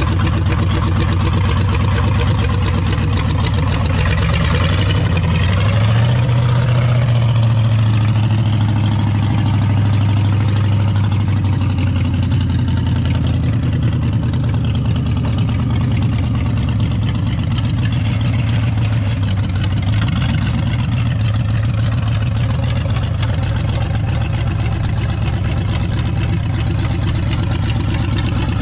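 Flathead Ford V8, said to be of 1937 vintage and swapped into a Ford N-series tractor, running loud through open headers. It picks up revs about five seconds in and holds them as the tractor drives off, easing a little later on.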